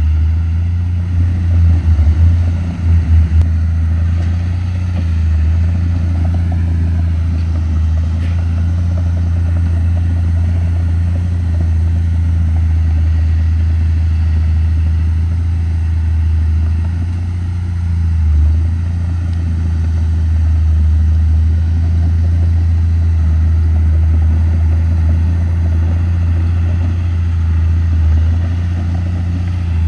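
Komatsu D31P crawler bulldozer's diesel engine running steadily under work. It swells louder a few times between about one and three seconds in, and again briefly past halfway.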